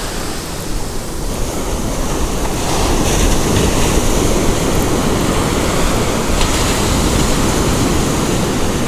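Ocean surf breaking and washing up the sand, a steady rushing wash that grows louder about three seconds in.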